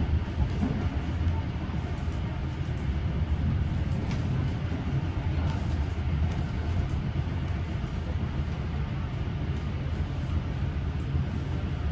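Old passenger carriage running on rails, heard from inside: a steady low rumble with an even rattle and a few faint clicks.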